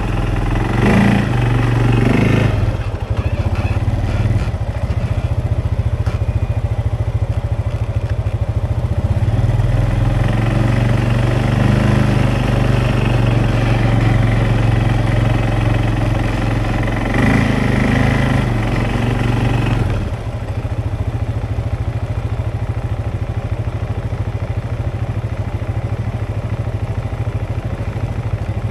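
Off-road vehicle engine running steadily under way on a trail, its note heavier for a stretch and then easing off about twenty seconds in.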